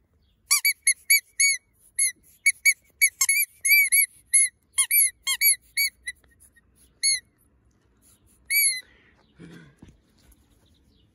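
Green rubber squeaky bone dog toy being squeezed: a rapid string of short, high squeaks, each rising and falling in pitch, then one longer squeak a little later.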